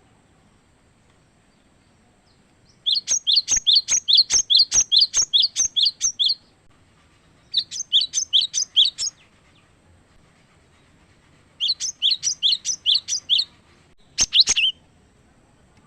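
Cinereous tit (gelatik batu) singing: three runs of quickly repeated, high two-note phrases about three or four a second, separated by pauses, then one short loud burst near the end.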